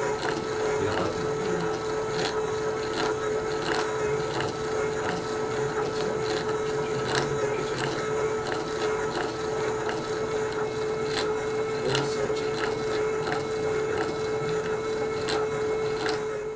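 Rigenera Activa device running, spinning a Rigeneracon capsule to break up hair-follicle tissue: a steady motor hum with irregular clicking and rattling.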